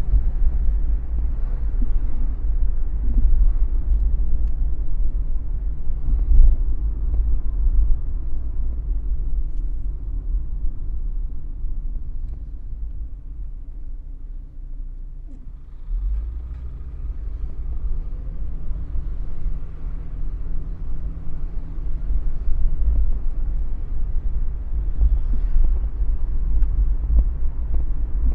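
Car driving on city roads: a steady low road and engine rumble. It dies down for a few seconds around the middle, then picks up again sharply about 16 seconds in.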